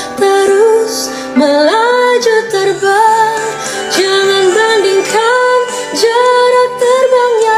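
Background song: a woman singing a slow melody in Indonesian over soft instrumental backing.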